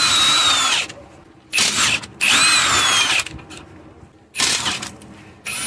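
Cordless power tool on a socket spinning off the front engine mount's nuts, in several short runs of whirring, each with a high whine that slides down in pitch.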